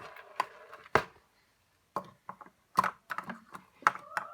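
A small box being handled as a squishy is packed into it: a string of sharp, irregular taps and knocks, about a dozen, with short quiet gaps between.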